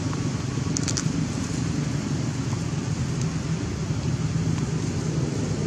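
Steady low rumble of distant motor traffic, with a couple of faint high ticks about a second in.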